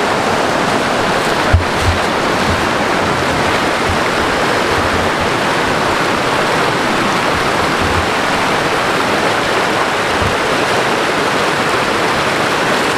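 Rocky stream rushing over rocks and small rapids in a steady, even wash, with one brief thump about a second and a half in.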